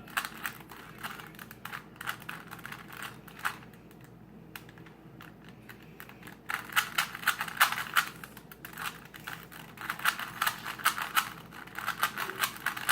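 Plastic Rubik's Cube layers clicking and clacking in quick runs of turns as the cube is being solved. There is a lighter patch about four seconds in, then denser, faster turning.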